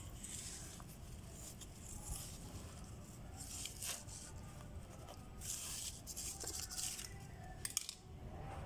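Fingers and a small stick digging and scraping through loose potting soil in a terracotta pot, with crumbly rustling in several short bursts and a few sharp clicks near the end.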